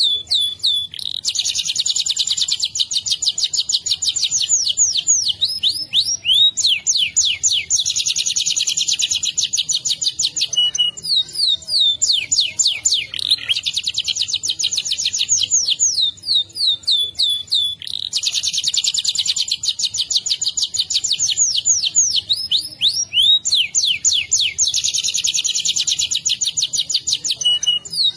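Domestic canary singing its long rolling song (ngerol). Long, fast, buzzy trills lasting several seconds each alternate with quick runs of sweeping whistled notes, repeated without pause.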